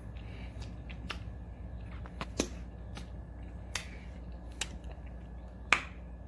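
Wet lip smacks and tongue clicks from a mouth eating sticky peanut butter off a spoon: a scattering of short, sharp clicks, a few of them louder than the rest.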